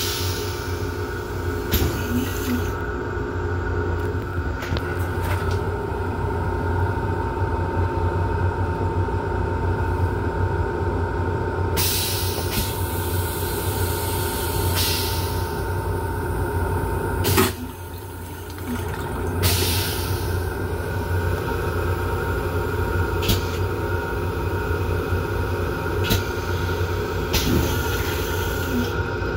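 Toilet on a Long Island Rail Road M7 railcar being flushed: a hissing rush of a few seconds ending in a sharp clunk, after which the background dips briefly. Under it runs the steady hum of the moving train, with a few scattered clicks and knocks.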